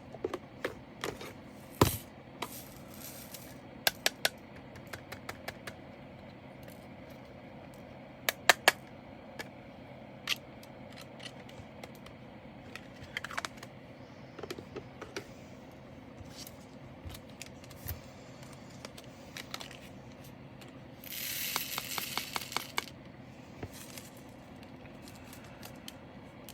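Small plastic diamond-painting drills clicking and rattling as they are handled and sorted, in scattered sharp ticks. A denser rattling spell about 21 seconds in sounds like drills being tipped or shaken.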